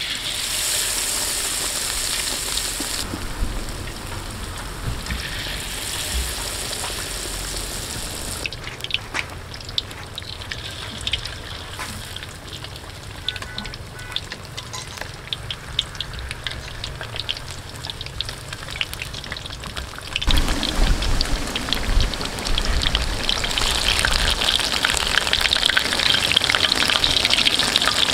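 Batter-coated taro cakes deep-frying in hot oil in a wok: two loud stretches of hissing in the first eight seconds as cakes go into the oil, then a lighter spitting crackle, which turns louder and denser about two-thirds of the way through.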